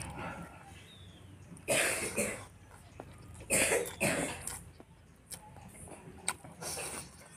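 A man coughing in three short bouts about two seconds apart while eating spicy curry and rice, with small sharp mouth clicks between the coughs.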